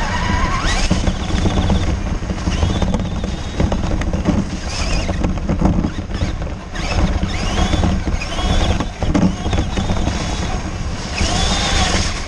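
A radio-controlled car's motor whines up in pitch again and again with bursts of throttle. Under it is a loud rumble and hiss from its tyres on wet, slushy pavement and snow, picked up by a camera mounted on the car.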